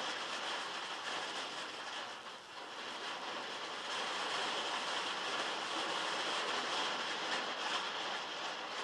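Heavy rain falling on metal, heard from inside a log shed: a dense, steady patter that eases briefly about two and a half seconds in.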